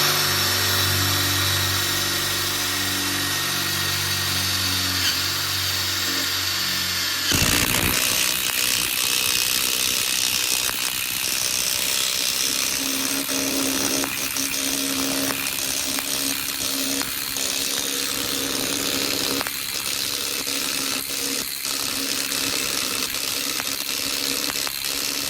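Ryobi One+ 18V 3/8-inch cordless impact wrench driving a 1/2-inch lag bolt into pressure-treated timber. Its motor runs with a steady whine for about seven seconds, then the hammer mechanism kicks in and it hammers continuously as the bolt meets resistance in the wood.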